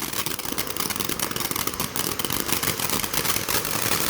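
Consumer firework crackling: a dense, rapid run of small pops over a steady hiss.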